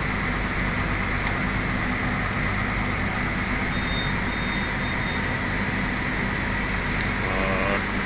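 Floor-standing air conditioner's indoor unit running: a steady hum and rush of air from its blower fan.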